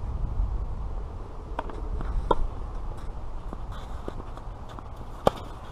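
Tennis ball being hit back and forth in a rally on a clay court: several separate sharp hits and bounces, the sharpest about five seconds in, over a steady low rumble.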